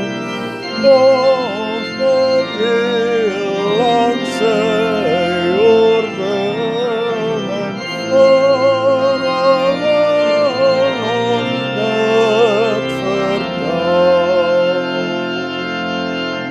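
Organ music: sustained chords under a wavering melody line with vibrato.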